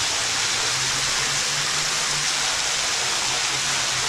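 Steady rushing of a waterfall spilling into a shallow pool, heard from behind the falls.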